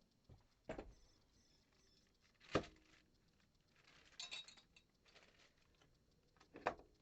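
Faint, separate knocks and small metallic clinks of tools and lock hardware being handled, the loudest knock about two and a half seconds in and a short run of higher clinks a little past the middle.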